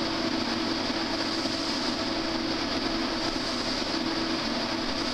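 Industrial vacuum dust extractors running: a steady, even whooshing drone with a constant low hum.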